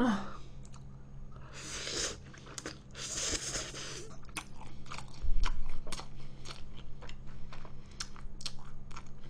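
Close-miked eating of thick, flat instant noodles: two long slurps of noodles, then chewing with many small wet mouth clicks. A low thump comes about five seconds in, over a steady low electrical hum.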